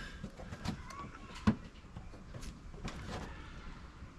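Scattered light clicks and knocks from car trim parts and tools being handled during panel removal, with one sharper knock about a second and a half in.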